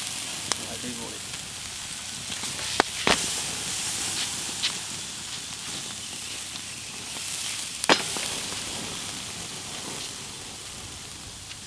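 Marinated beef ribs sizzling on a charcoal grill, a steady high hiss with a few sharp pops and crackles, the loudest about three and eight seconds in.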